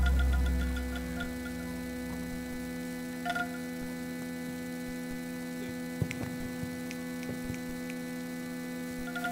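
The gamelan's last low ringing dies away within the first second or so, leaving a steady electrical mains hum from the sound system's mixer feed, broken by a few faint knocks.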